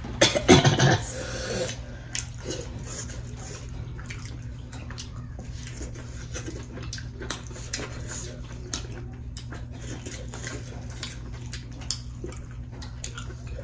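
Close-up wet eating sounds: fingers squishing and mixing dhido in soup on a metal plate, with chewing and lip smacking, a string of small wet clicks. A louder wet mouth sound comes about half a second in, over a steady low hum.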